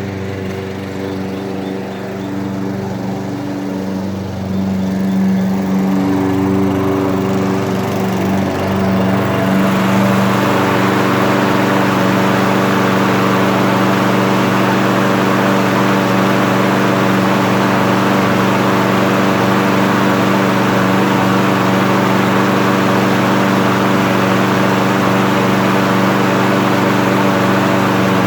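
Toro Recycler walk-behind mower's engine running steadily at working speed, mowing with the bag attached. A rushing hiss builds up over the first ten seconds and the sound grows louder, then holds steady.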